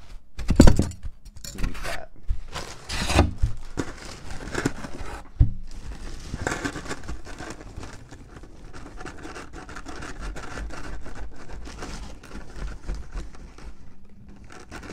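Deli paper crinkling and a few thumps as a wrapped burrito is handled on a table, then a plastic knife sawing through the tortilla for several seconds, cutting the burrito in half.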